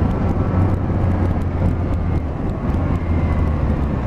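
Motorcycle engine running steadily under way, with wind rush.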